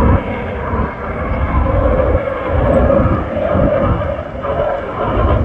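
Aircraft engines running loud overhead at an airshow, a steady rumble that swells and eases, dipping about a second in and again near the end.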